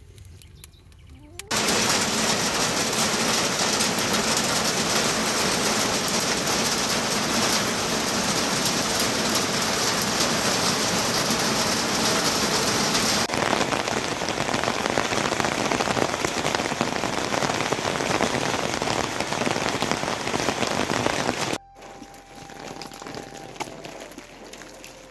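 Heavy rain falling in a steady downpour, starting suddenly about a second and a half in and cutting off abruptly near the end.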